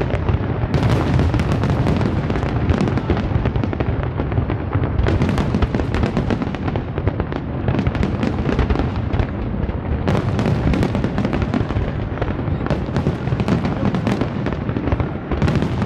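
Large fireworks display: a dense, unbroken barrage of aerial shells bursting, the bangs following one another so closely that they overlap into a continuous rumble.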